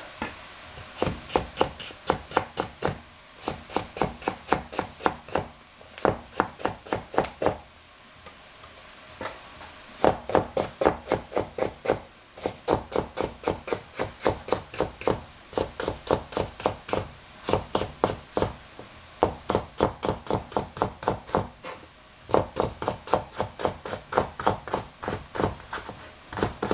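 Kitchen knife cutting potato on a cutting board. Runs of quick, even strokes, about four a second, with a couple of short pauses between runs.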